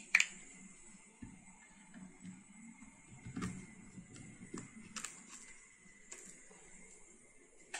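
Plastic clicks and scraping as a trigger spray head is pushed onto a plastic bottle and screwed down. One sharp click just after the start is the loudest, followed by softer clicks and rubbing about once a second.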